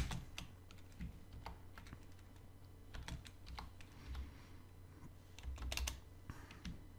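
Computer keyboard typing: scattered keystrokes in short clusters, with pauses between them.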